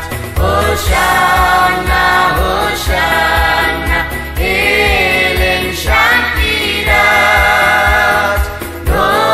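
A group of voices singing a hymn together, the melody moving in long sung phrases, with low thumps underneath.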